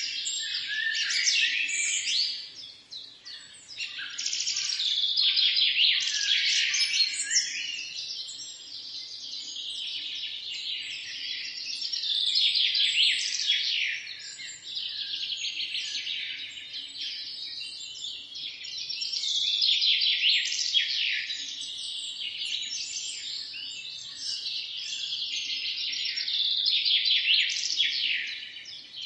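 Many birds chirping together in a dense chorus of quick, high calls that swell and fade every few seconds.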